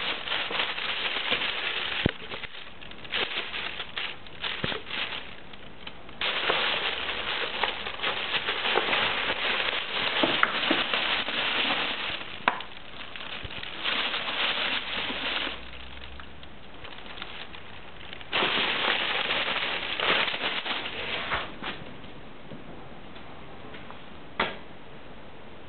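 Clear plastic bags crinkling and rustling in bursts as a cat paws and burrows into them, with quieter pauses between bursts and a single sharp tap near the end.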